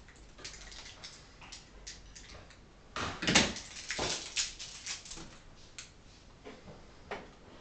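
Hands handling small plastic model parts and packaging: scattered light clicks and rustles, with a denser burst of rustling about three to four and a half seconds in.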